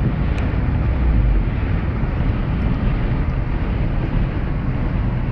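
Steady road noise heard from inside a moving car's cabin on a rain-soaked road: engine, tyres on wet asphalt and wind. There is one faint tick about half a second in.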